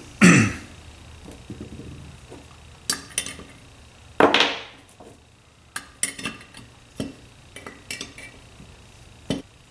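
Steel combination wrenches clinking and clicking against each other as they are picked out of a row of tools, then a wrench is set on a fitting of a Tillotson Model X carburetor body. The clicks are light and scattered, and two louder noises come just after the start and about four seconds in.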